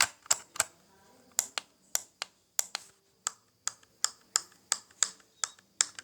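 Buttons on an unplugged game controller being pressed over and over, making sharp, irregular clicks about three a second with a couple of short pauses; the clicking is described as "so clicky".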